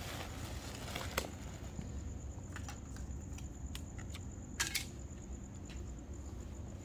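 Black plastic trash bag crinkling and crackling as it is pushed down into a plastic bucket, with a few sharp crackles, the loudest about a second in and a close pair a little past halfway, over a steady low hum and a faint steady high tone.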